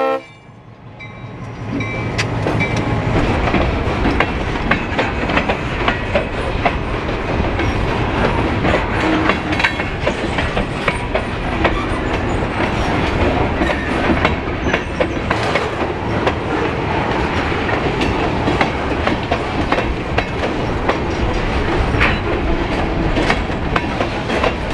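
Freight train of covered hopper cars rolling past close by, a steady rumble with wheels clacking over the rail joints.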